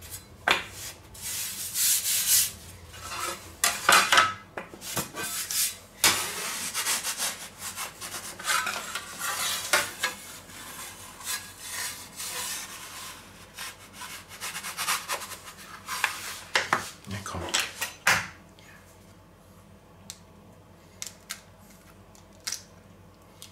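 Metal pizza peels scraping and clattering against a wooden cutting board as a raw pizza is pushed from the board onto a round peel, in loud irregular scrapes and knocks. About 18 seconds in it goes quiet, leaving a few light taps near the end as an egg is cracked.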